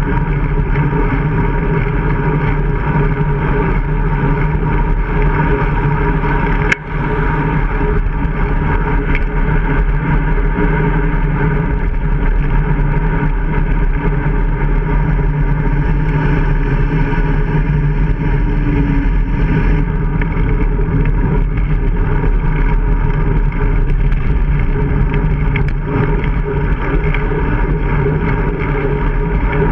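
Steady drone of wind and road noise on a handlebar-mounted action camera as the bicycle rides along, with one sharp click about seven seconds in.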